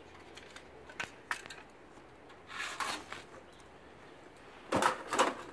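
Broken TV parts of plastic and sheet material being picked up off the pavement and handled: a few light clicks and rustles, then a louder burst of rustling and clattering near the end.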